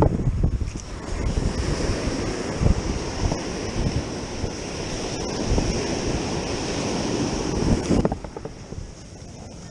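Ocean surf washing up a sandy beach, a steady rush of breaking waves, with wind buffeting the microphone in low thumps. The rush drops off sharply about eight seconds in.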